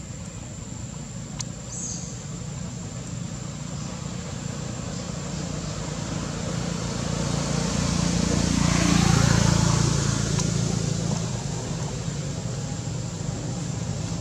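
A motor vehicle passes, its engine and road noise swelling slowly to a peak about nine seconds in and then fading away.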